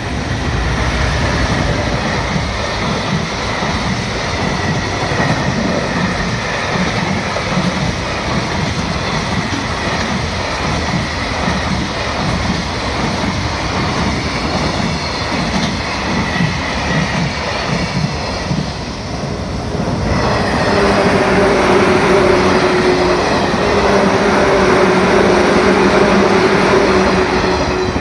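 A train passing close by at speed: a loud, steady rumble with rhythmic clatter of wheels over the rails. About twenty seconds in the sound changes to a louder rush with steady tones running through it.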